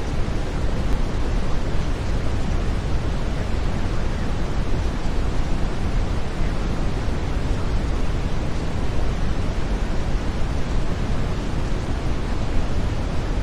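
Steady brown noise: an even, deep rushing hiss with most of its weight in the low end, unchanging throughout.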